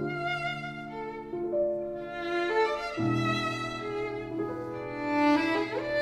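Background music: a slow violin melody of long held notes, changing every second or two, over a low sustained bass note.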